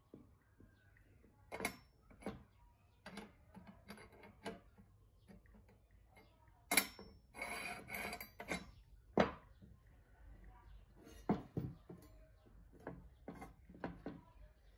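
Steel bars being handled on a wooden workbench: scattered clinks and knocks of metal against metal and wood, with a short scraping slide of a bar along the bench about eight seconds in.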